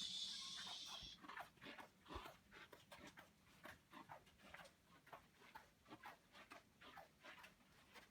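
Faint, quick clicking of a dog's claws on a hard floor as it walks, after a short hiss in the first second.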